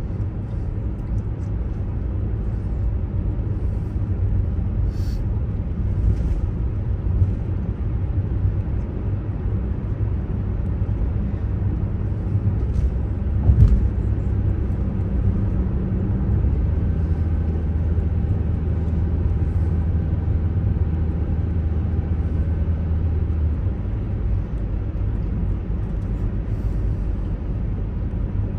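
Car driving, heard from inside the cabin: a steady low rumble of engine and road noise. There is one sharp thump about halfway through, and a steadier low hum holds for several seconds in the second half.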